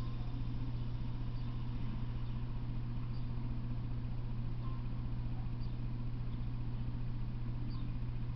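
A steady low hum over a constant hiss, with a few faint, short high-pitched chirps.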